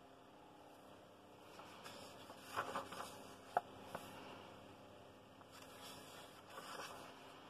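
Faint paper handling on a softcover colouring book: hands brushing over the pages with a few soft taps and one sharp click about three and a half seconds in, then a page rustling as it is turned near the end.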